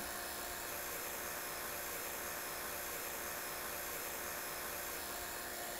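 Hilmor two-stage 5 CFM vacuum pump running steadily, a faint even hiss with a light hum, pulling a deep vacuum on a mini-split's refrigerant lines as the micron reading falls.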